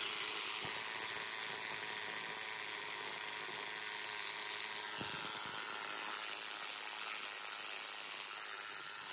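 Cordless Milwaukee rotary hammer running steadily under load, its core bit grinding a hole through a stucco and masonry wall.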